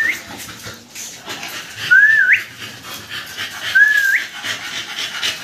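Three short high whistles about two seconds apart, each dipping slightly and then sliding sharply upward at the end.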